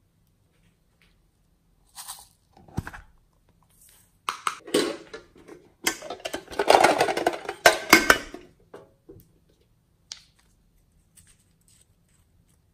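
Glass nail polish bottles clattering and clinking as a hand rummages through a small box of them, loudest about halfway through. A few light clicks follow near the end as a bottle's cap is worked open.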